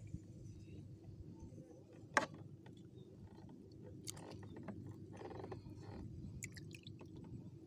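Wet squelching and small splashes of a hand kneading a clump of green moss bait in a basin of water, with scattered small clicks and one sharp click about two seconds in, over a steady low rumble.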